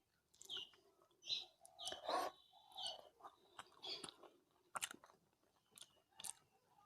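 Close-miked chewing of rice and curry, wet mouth smacks and clicks coming about once a second.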